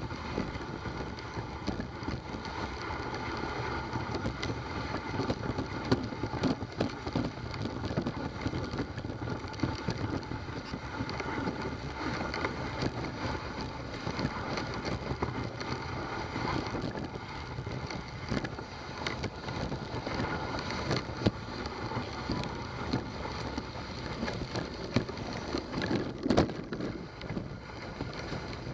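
Dog sled moving along a snowy trail: a steady scraping hiss of the runners over the snow, with frequent small knocks and rattles from the sled.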